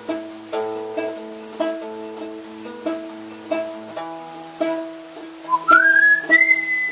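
Nylon-string classical guitar picked in an even pattern of about two strokes a second, the chord changing about four seconds in. Near the end a high, pure whistle-like note glides upward and holds over the guitar.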